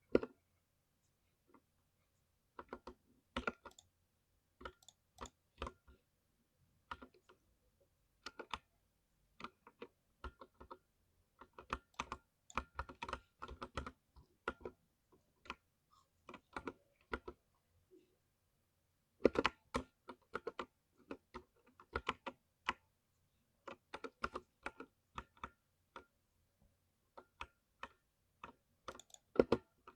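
Typing on a thocky mechanical keyboard: irregular runs of keystrokes broken by short pauses, with the loudest quick run about two thirds through.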